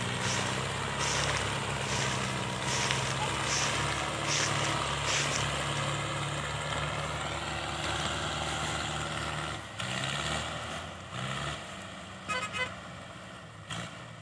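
Diesel tractor engines, a Swaraj 855 and a Mahindra Arjun 605 hitched in tandem, running steadily under load as they haul a heavily loaded sugarcane trailer across a harvested field. They fade as they pull away, and an engine revs up about ten seconds in.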